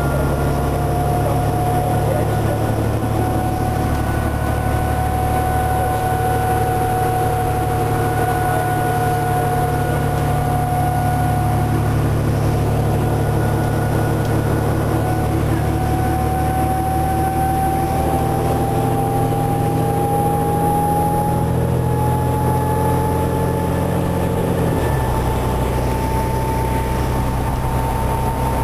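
Inside a 2006 New Flyer D40LF city bus at expressway speed: the steady low drone of its Cummins ISL diesel engine, with a high drivetrain whine that slowly rises in pitch. Near the end the low drone changes pitch.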